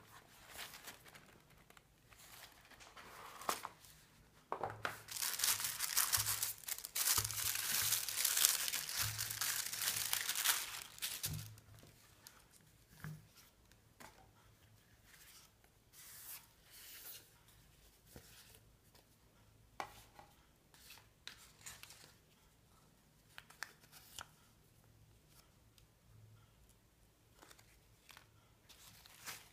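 Packaging being opened and unwrapped by hand: a dense stretch of crinkling and tearing lasting about six seconds, starting about five seconds in, with scattered light taps and rustles of the box and its contents being handled before and after.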